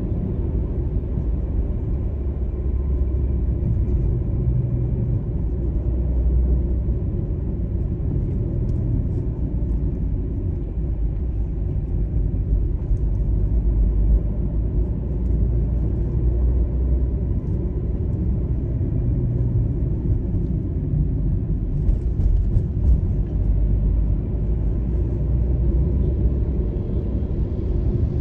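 Steady low rumble of a car driving on city streets, heard from inside the cabin: tyre and engine noise.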